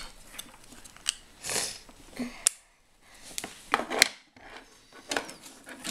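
Plastic LEGO pieces being handled and fitted together: a series of sharp little clicks about a second apart, with soft rubbing and shuffling of pieces on the table between them.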